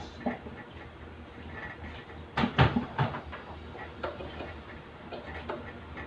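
Scattered knocks and clatter of a tray and kitchen items being handled at an open wall oven, the loudest burst of knocks about two and a half seconds in, over a steady low hum.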